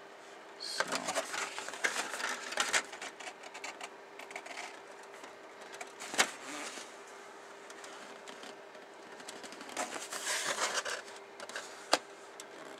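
Handling noise from a plastic model kit: bursts of clicking, rattling and crinkling as the plastic parts and their packaging are moved about, with a sharp click about halfway and another near the end.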